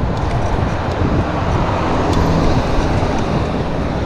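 Steady road traffic noise from cars on a multi-lane street: a continuous rush of tyres and engines with a low rumble.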